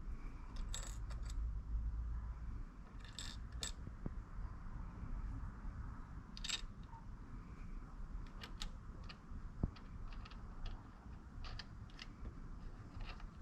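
Scattered small metallic clicks and ticks of washers and hex nuts being handled and threaded onto the posts of locking guitar tuners, over a low rumble of handling.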